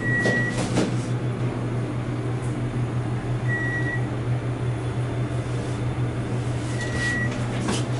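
Dover elevator's electronic beep sounding three times, short single high tones about three and a half seconds apart, like a microwave beep, over a steady low hum in the cab.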